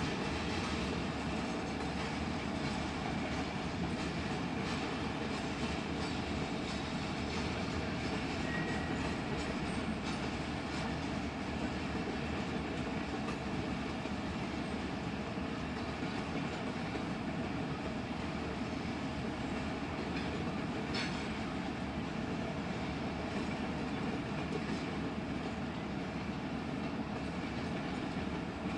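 A freight train's cars rolling past steadily, steel wheels running on the rails. A brief thin squeal about a third of the way in, and a short sharp metallic click about three-quarters through.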